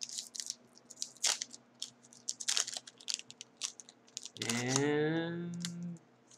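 Crinkling and crackling of a trading card pack's wrapper and plastic card sleeves being handled, in many short sharp crackles. About four and a half seconds in, a man's voice makes a drawn-out hum for about a second and a half.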